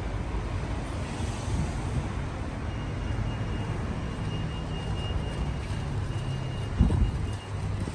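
Street traffic: a steady low hum and rumble of vehicle engines, with a faint thin high whine in the middle and a brief low thump near the end.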